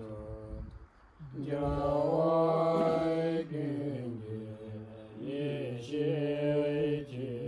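Buddhist monks chanting a prayer in low, long-held notes, breaking off briefly about a second in before carrying on.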